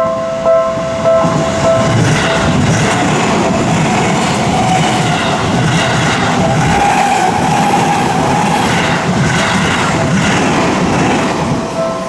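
A railway level-crossing warning bell rings in a steady repeating clang. From about two seconds in, an electric commuter train passes over the crossing for about nine seconds with a loud rumble of wheels on rails. The bell is heard clearly again near the end as the train clears.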